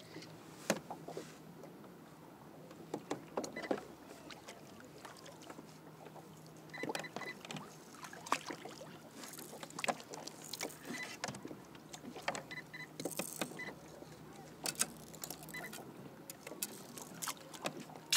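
Scattered knocks, clicks and small water sounds of gear being handled aboard a fishing kayak, at irregular intervals, with a few brief high chirps among them.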